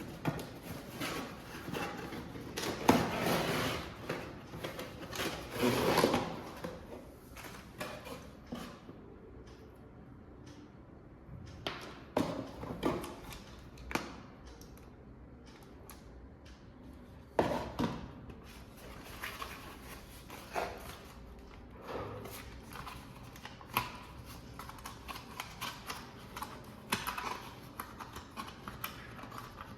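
Packaging being handled during an unboxing: rustling of cardboard and plastic with scattered clicks and knocks, loudest in two rustling bursts early on and sharper clicks later.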